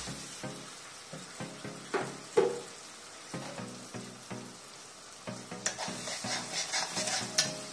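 Steel spoon stirring and scraping a thick onion-tomato masala in a steel kadai, the masala sizzling in oil. There is a sharp clink of spoon on pan about two and a half seconds in.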